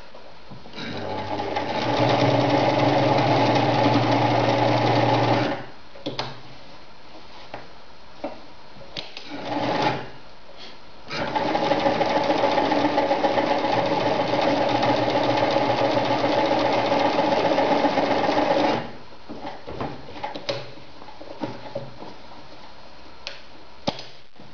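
Victoria Nutzstich ZZ-580 electric sewing machine stitching through folded layers of denim in two runs: one of about four and a half seconds that speeds up over its first second, and one of about eight seconds starting some eleven seconds in. Light clicks and knocks come between and after the runs.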